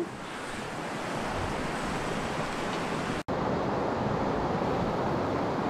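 Steady rush of a shallow, fast stream running over a stony bed. It is broken by a split-second dropout about three seconds in, after which the rush is a little louder.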